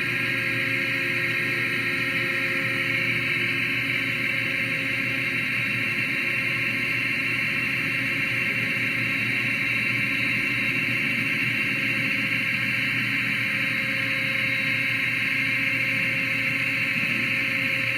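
Hardinge GT 27 gang-tool CNC lathe running under its program: a steady machine whine holding several tones, with no change in pitch or level.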